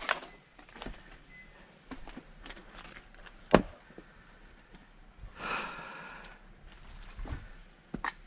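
An axe striking a log while splitting firewood, one sharp crack about three and a half seconds in. About two seconds later comes a heavy breath lasting about a second, and another sharp knock near the end, with small knocks of wood between.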